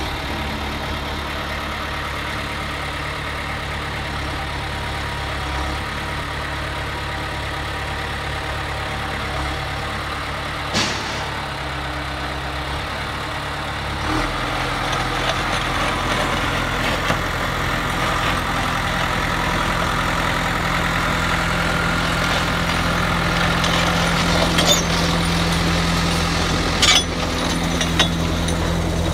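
John Deere 450G crawler dozer's four-cylinder diesel engine running steadily, picking up speed and getting louder about halfway through. There are a few sharp metallic clanks near the end.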